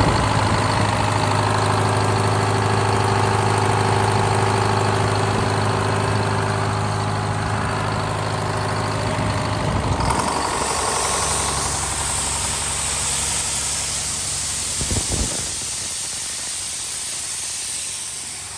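Two-stroke Detroit Diesel engine of a Schramm air hammer tractor running steadily. About halfway through its note drops back and a steady hiss joins it.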